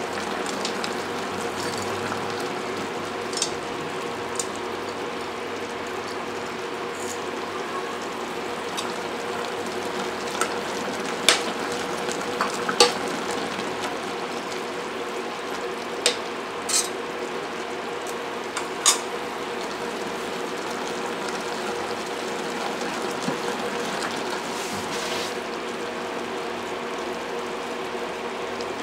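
Pork hock braise in soy-based sauce simmering in a stainless steel pot, a steady bubbling sizzle over a faint steady hum. A metal spoon clinks against the pot several times in the first two-thirds as banana blossom is stirred in.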